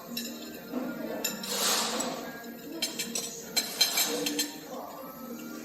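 Tableware clinking while eating: a spoon and chopsticks tapping against bowls and dishes, with a cluster of sharp clinks about three to four seconds in. A short rush of noise comes just under two seconds in.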